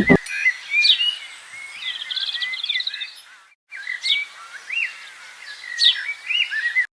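Songbirds calling: short whistled chirps and a quick trill about two seconds in, with a brief dropout about halfway before similar calls start again. The last chord of the background music cuts off at the very start.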